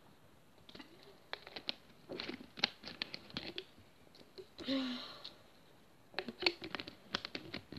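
Handling noise from a phone held close: a run of small clicks and taps as fingers grip and brush it, then a second run near the end, with a short breathy sound in between.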